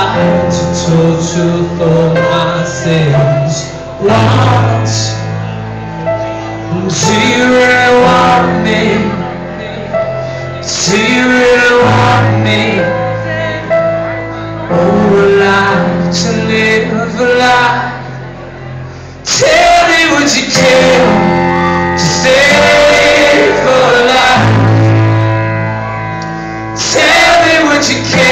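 Live acoustic rock music: sustained low chords changing every few seconds under singing with no clear words, in a large hall.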